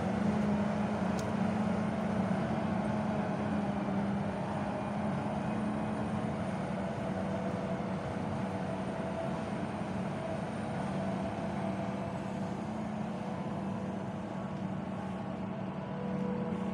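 Self-propelled forage harvester chopping standing maize for silage, its engine and chopper running steadily with a constant hum and whine.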